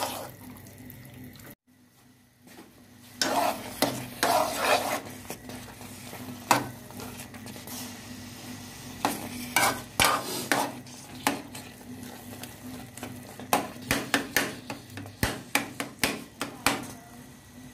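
Steel spoon stirring and scraping a thick eggplant mash around an aluminium pot, with irregular knocks of the spoon against the metal over a soft sizzle of frying. The mash is being fried in spiced ghee to finish it. There is a brief gap just under two seconds in.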